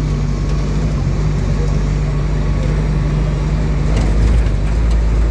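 Motor vehicle engine running with a steady low drone, over road traffic noise.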